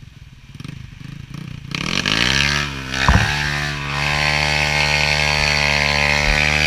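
Kawasaki KLX 150BF dirt bike's single-cylinder four-stroke engine pulling under load on a slippery muddy climb. It is low at first, revs up about two seconds in, and is then held at steady high revs. A sharp knock comes about three seconds in.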